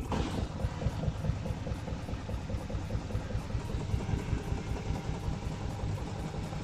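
Washing machine knocking as its drum spins: a fast, even run of low thuds that keeps up steadily.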